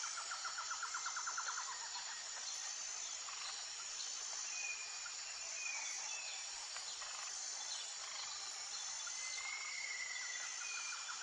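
Nature ambience of insects and birds: a steady high trilling of insects, with a fast pulsed trill near the start and again near the end, and a few short bird chirps.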